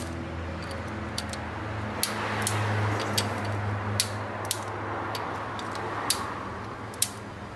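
Sharp, irregular clicks of a torque wrench tightening the camshaft cover bolts of a VW EA111 engine to 6 Nm in sequence, about one click a second, over a steady low hum.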